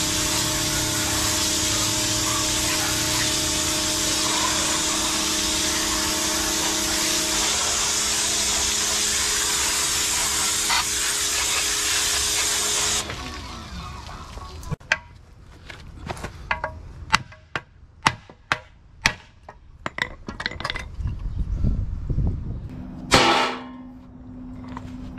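Pressure washer running and spraying through a foam cannon into a car's wheel well and suspension, its motor hum steady, then cutting off about 13 seconds in with the hum falling away. After that come about ten sharp clicks and knocks, and a short loud burst near the end.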